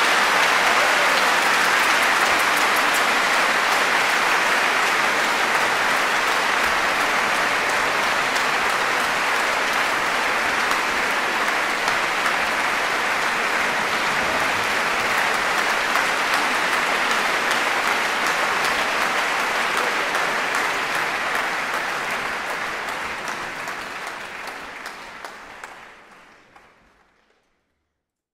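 Concert audience applauding steadily at the end of a performance, the applause fading away over the last few seconds.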